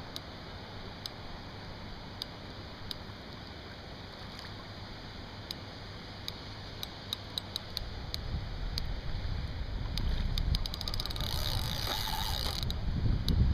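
Steady rush of river water with a scattering of light, sharp ticks that come quicker in a cluster a little past the middle. From about eight seconds in, wind buffets the microphone with a growing low rumble.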